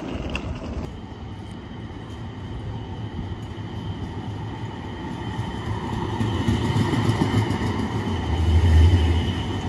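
A light-rail tram passing close by: a steady whine over the rumble of steel wheels on the rails, growing louder towards the end as the tram comes alongside.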